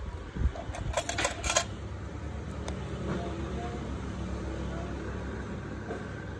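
A quick run of four or five sharp, small metal clicks about a second in, then two fainter clicks, from toenail nippers working at the nail edge. A steady low hum runs underneath.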